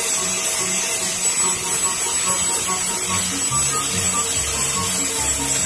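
Handheld electric angle grinder with a flap disc running steadily while sanding a wooden bolo handle, a high whine over a loud sanding hiss. Background music plays underneath, with bass notes coming in about halfway through.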